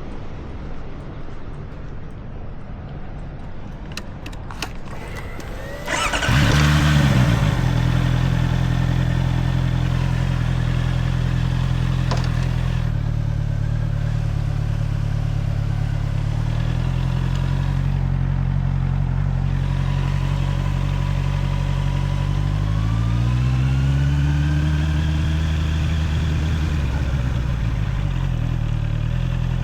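Honda CBR650R inline-four engine started about six seconds in after a few clicks, flaring briefly and settling into a steady idle. Later it is revved once, the pitch rising and then falling back to idle.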